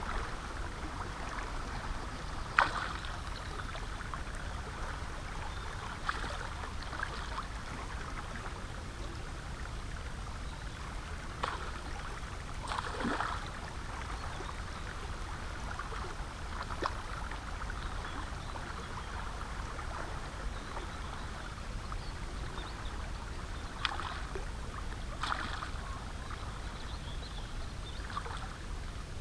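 River water moving along the rocks with a steady low rumble, broken by several short splashes from a hooked fish thrashing at the surface as it is played on a bent spinning rod.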